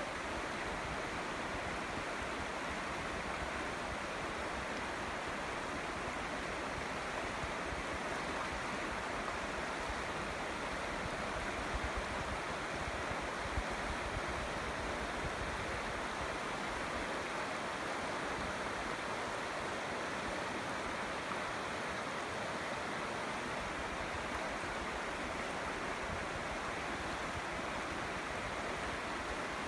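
Shallow river rushing steadily over stones and gravel in a riffle.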